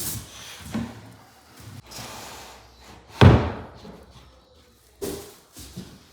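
A few knocks and thuds from handling and fitting skirting boards, with one heavy slap about three seconds in.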